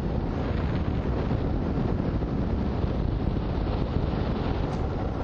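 Wind buffeting the microphone of a camera on a hang glider in flight: a steady, loud rushing rumble, heaviest in the low end.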